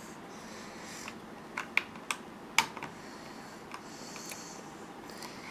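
LEGO bricks clicking and knocking as hands handle and press on the plastic tower. About eight sharp, separate clicks at uneven intervals, the two loudest near the middle.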